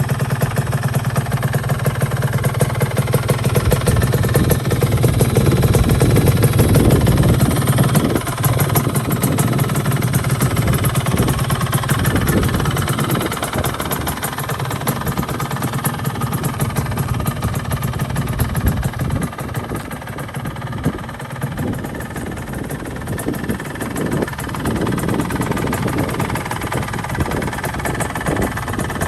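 Yamaha RX-Z 135's two-stroke single-cylinder engine running through an aftermarket stainless-steel expansion-chamber exhaust. It gets louder about five to eight seconds in, then eases back and is quieter for a while before picking up again near the end.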